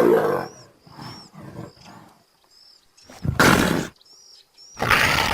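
Leopard calling with rough, rasping roars: one at the start, softer grunts after it, then two loud rasping calls about a second and a half apart in the second half.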